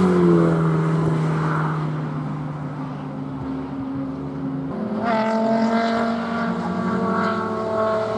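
A race car's engine held at high revs, fading as the car pulls away down the track. About five seconds in a second race car's engine comes in, higher-pitched and rising and falling with the throttle as it approaches.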